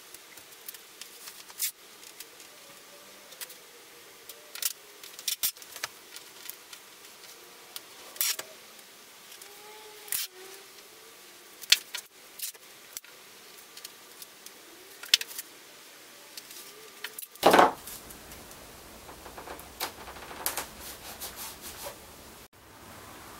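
Masking tape being pulled off the roll, torn and pressed along a surfboard's rail: scattered sharp ticks and short tearing sounds, with one louder, longer rip about three-quarters of the way through.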